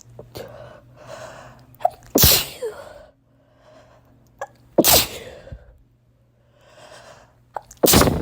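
A person sneezing three times in a row, roughly every two and a half to three seconds, each sneeze preceded by a drawn-in breath.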